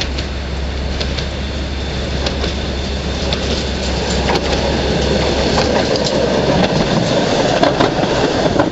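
W5-class streetcar rolling toward and past on its track: a steady rumble that grows louder as it nears, with scattered sharp clicks of the wheels on the rails, loudest as it passes close near the end.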